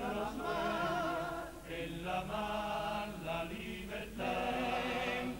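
Cádiz carnival comparsa choir singing a refrain in several-part harmony, long held notes with vibrato, with two short breaths between phrases.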